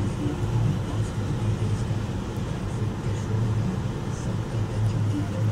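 Car cabin noise while driving slowly on a rough rural lane: engine and tyres give a steady low hum.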